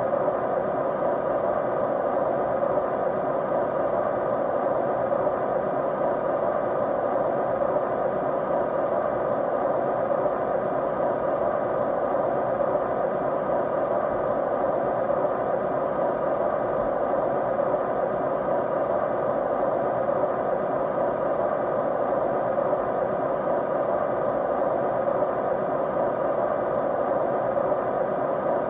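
Continuous white noise, a steady, unchanging hiss strongest in the middle range, with a few faint steady tones inside it.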